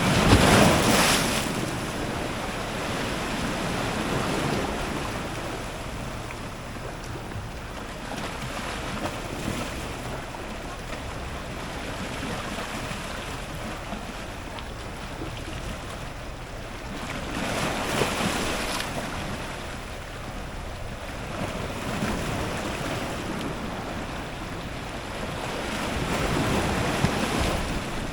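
Strong ocean surf breaking against rocks at the waterline: a continuous wash of water with waves surging in every few seconds. The heaviest wave crashes right at the start, with other big ones about two-thirds of the way through and near the end.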